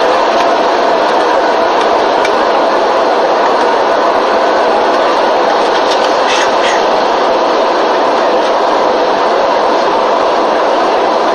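Steady drone of an airliner cabin: engine and airflow noise heard from inside the aircraft.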